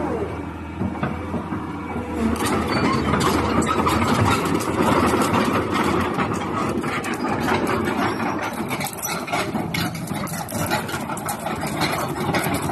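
Caterpillar 320 excavator's diesel engine running, growing louder and busier about two seconds in and staying at the higher level.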